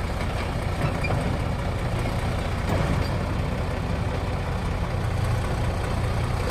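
Heavy diesel engine running steadily with a low rumble as a bulldozer is loaded onto a truck.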